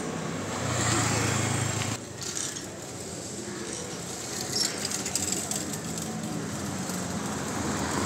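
Street traffic noise with a motor vehicle's engine running, loudest for about a second shortly after the start.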